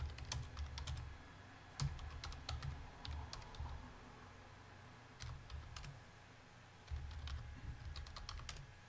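Computer keyboard typing in four short bursts with pauses between.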